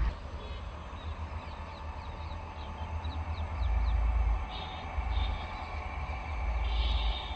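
Wind buffeting the microphone in gusts, a low rumble that swells twice, with a small bird chirping repeatedly over it in short falling notes.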